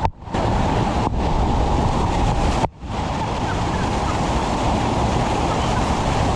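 Loud, steady rush of a waterfall, a dense even roar of falling water that dips out briefly near the start and again a little under three seconds in.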